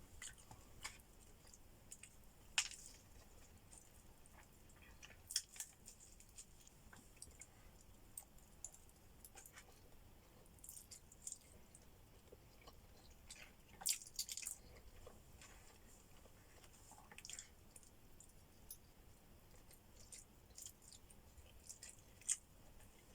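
Faint close-up eating sounds: irregular soft crunches, bites and chewing clicks scattered over a very quiet background, typical of a mukbang's opening eating footage.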